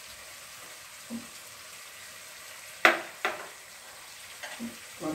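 Chilli chicken with onions and green chillies sizzling gently in a pot while being stirred with a wooden spatula, with two sharp knocks about three seconds in.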